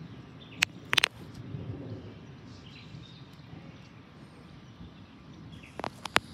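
Outdoor background with a low, steady murmur, broken by short sharp clicks: a few around the first second and a quick run of three near the end.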